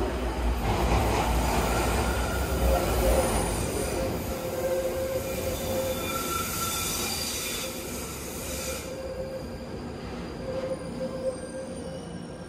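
London Underground train coming into the platform: a loud low rumble for the first few seconds eases into a few steady high-pitched tones as it slows, then the sound gets quieter.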